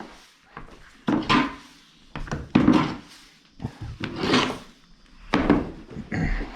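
Broom sweeping a hardwood floor: about five separate strokes, roughly one every second and a half.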